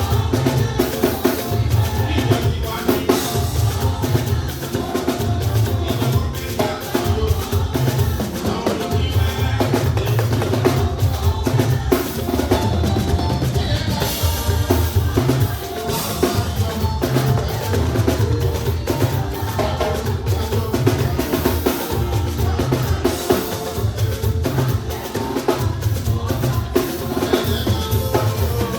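Band music driven by a drum kit and percussion, with a heavy pulsing bass line.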